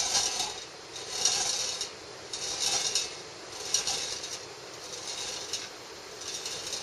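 A glass marble rolling round and round inside a metal can after a cat's paw has set it going: a rolling rattle that swells about every second and a quarter as it circles, growing fainter toward the end.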